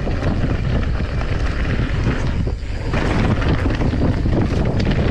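Wind rushing over the microphone of a camera carried on a moving mountain bike, with a steady run of small clatters and knocks from the bike rolling over rough ground.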